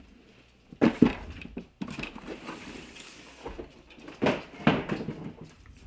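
Handling noise from a polymer airsoft rifle and its cardboard box: sharp knocks about a second in and again twice a little past four seconds, with cardboard scraping and rustling between.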